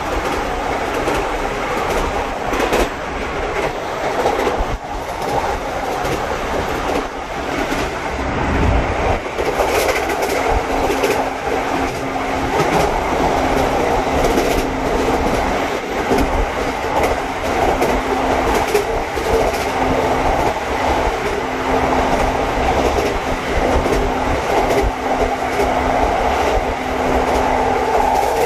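Passenger train running along the line, heard from inside the carriage: a steady running noise of wheels on rail with faint clicks now and then, and a steady hum that comes in about a third of the way through and holds.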